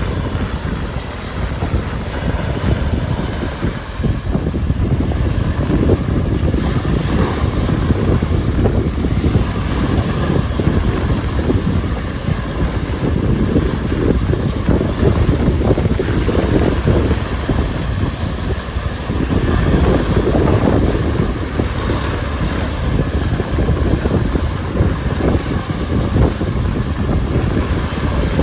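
Strong wind buffeting the microphone over waves breaking on the lakeshore, whipped up into whitecaps by an onshore wind. The noise is steady and heavy in the low range, swelling now and then.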